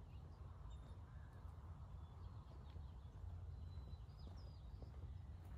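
Quiet outdoor ambience: a steady low rumble with a few faint, short bird chirps.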